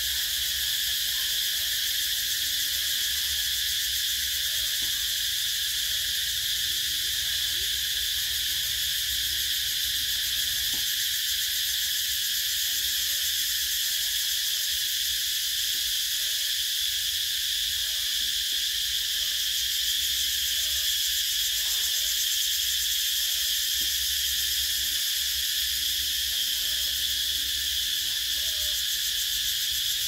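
Cicadas buzzing in one steady, unbroken high-pitched drone that neither rises nor falls.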